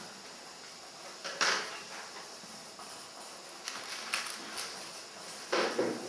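Pastel and fingertips rubbing on paper: a few short scratchy strokes, the two strongest about a second and a half in and near the end.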